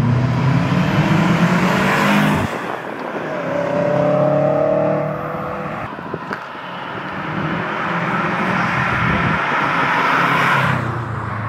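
Turbocharged EJ20 flat-four of a Subaru WRX with a TD05-20G turbo, driven hard past the camera, its engine note rising in pitch several times as it pulls through the revs. The sound breaks off suddenly about two and a half seconds in, and a short sharp click comes a little after six seconds.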